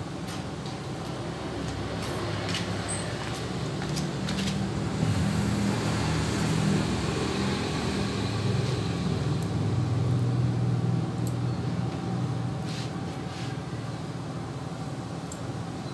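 A motor vehicle engine running nearby as a low rumble. It grows louder to its peak around the middle and eases off toward the end, with a few faint clicks.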